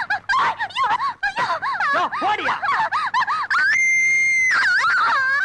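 A woman shrieking and wailing in quick rising-and-falling cries, about four a second, breaking into one long high held scream about four seconds in.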